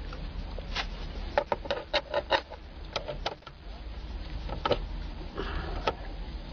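Irregular sharp clicks and taps of a hand tool and socket working on the 5.5 mm screws of a car's plastic steering column covers, with a brief rasping rub a little past five seconds in, over a low steady hum.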